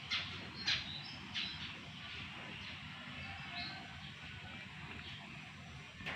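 Birds chirping outdoors: three sharp chirps in the first second and a half, then fainter scattered high notes over a steady low background noise.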